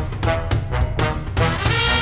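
Swing-style big band music on the soundtrack: a steady beat of drum hits, then the brass comes in with a held chord about one and a half seconds in.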